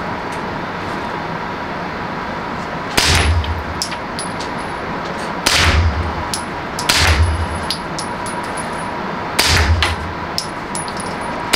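Suppressed Century Arms Draco 9S 9 mm pistol firing four single shots at uneven intervals of about one and a half to two and a half seconds, each a sharp crack with a short low boom; a fifth shot comes right at the end.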